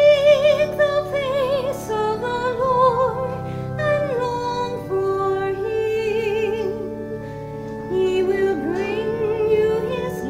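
A woman's solo voice singing a slow offertory hymn with wide vibrato over sustained organ chords.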